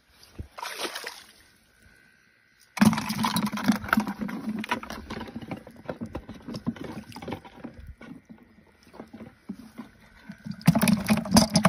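Water splashing and churning in a muddy ditch as an eel thrashes while being pulled out on a hooked rod, with a busy spell from about three seconds in and the loudest splashing near the end.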